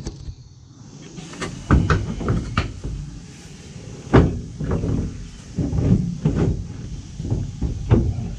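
Repeated metal clunks and rattles of the driver's seat in a 1964 Studebaker ZIP-Van being released and shifted by hand, the loudest knock about halfway through.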